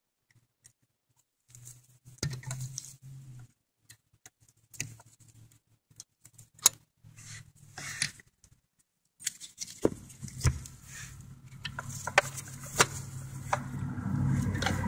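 Metal hand tools clicking and tapping against a car's clutch pedal linkage, a scatter of short sharp clinks. A low hum comes in about two-thirds of the way through and grows louder toward the end.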